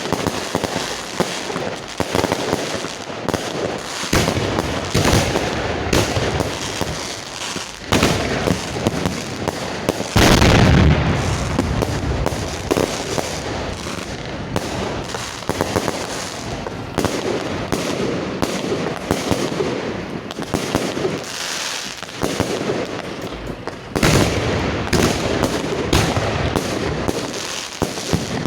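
Fireworks display firing: a continuous barrage of rapid bangs and crackling from shells and cakes launching and bursting. The loudest, deepest blasts come about ten seconds in, with another heavy volley a few seconds before the end.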